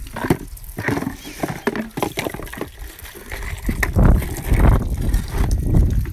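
Steel pots and plastic jugs clattering and knocking as they are set down in a concrete washing trough. From about four seconds in, tap water runs onto them, with wind rumbling on the microphone.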